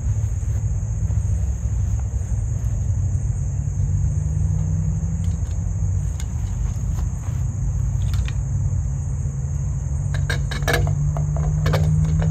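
Steady low rumble with a constant high-pitched insect drone. Near the end, a quick run of light metallic clicks as a conduit weatherhead is worked onto the end of the pipe.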